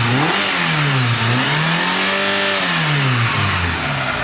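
Warm VAZ 2.0-litre petrol engine revved by hand: a short blip peaking about half a second in, then a longer rev peaking around two seconds in that falls back to a steady idle. As the engine warms it has begun tapping, which the owner takes for a failing hydraulic valve lifter, though he allows it may be something else.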